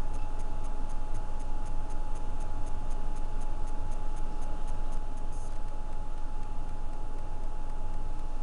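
Steady machine-like hum with a constant mid-pitched tone over a low rumble, and light, rapid ticking, about four ticks a second, that stops about five seconds in.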